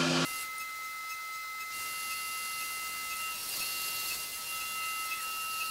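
Haas UMC 750 SS five-axis CNC mill running with flood coolant spraying. A louder, lower cutting noise stops abruptly just after the start, leaving a steady high-pitched whine of several tones over the hiss of the coolant. One of the whine's tones slides and drops out near the end.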